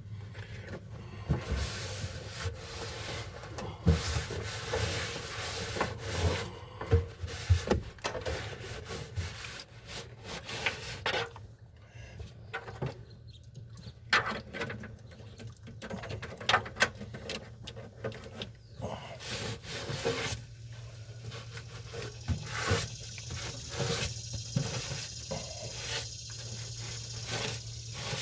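Scrubbing and wiping on the sheet-metal trunk floor of a Pontiac Firebird, cleaning it in uneven strokes, with scattered sharp knocks and clatter.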